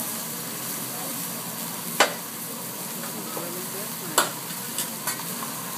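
Food sizzling on a hibachi griddle. Sharp clacks come about two seconds in and again about four seconds in, followed by two fainter ones.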